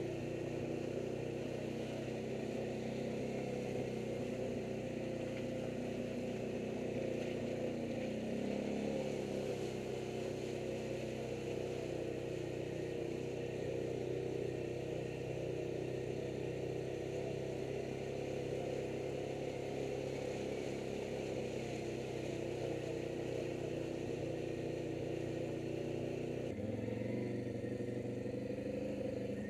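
ATV engine running steadily while under way at a constant pace. Its pitch shifts slightly about nine seconds in and changes abruptly near the end.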